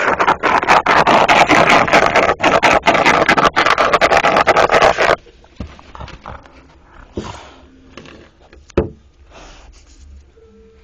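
Siberian husky digging with its front paws: a fast, loud run of scratching and scraping that stops suddenly about halfway through. Quieter scattered scuffs follow, with one sharp knock near the end.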